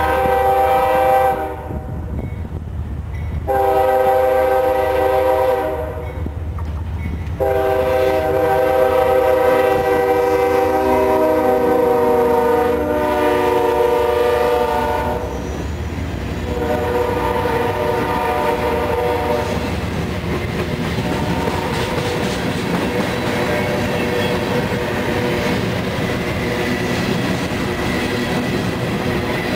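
CSX diesel freight locomotive sounding its horn in several blasts, the third held for about eight seconds, as it comes up and passes. Then comes the steady rumble and wheel clatter of the freight cars rolling by.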